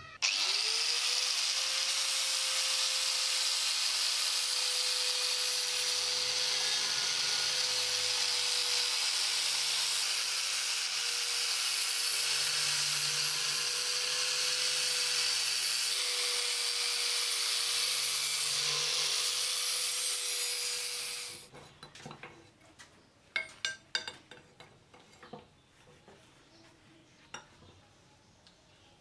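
Angle grinder with an abrasive disc spinning up and grinding the rusty steel blade of a cleaver held in a vise: a steady motor whine under harsh grinding hiss for about twenty seconds. It then spins down and stops, and a few light clicks and knocks follow.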